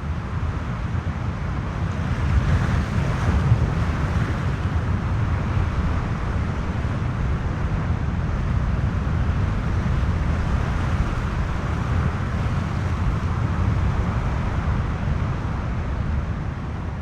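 Wind and sea moving through a sea cave: a steady deep rumble from the cave's wind-driven resonance under a hiss of surf wash, swelling a little about three seconds in.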